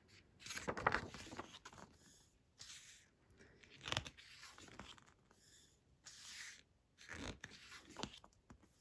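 Pages of a large photobook being turned and smoothed down by hand: a series of soft paper rustles and slides, several seconds apart.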